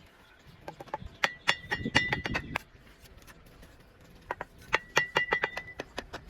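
Quick runs of sharp metallic taps with a ringing tone, in two bursts of about a second and a half each: a mason's steel trowel striking brick and mortar.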